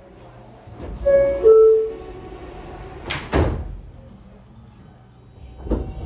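R160A-Alstom subway car's door chime: a two-note descending ding-dong about a second in, then the doors shut with a loud clunk about three seconds in, and more knocks near the end, over the car's low rumble with its ventilation off.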